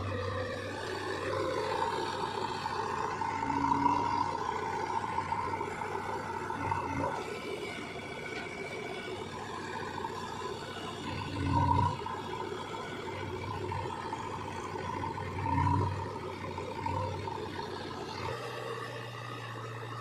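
JCB 3DX backhoe loader's diesel engine running and revving as the machine drives and works its loader, rising and falling with a whine and a few louder surges, then settling to a steadier note near the end.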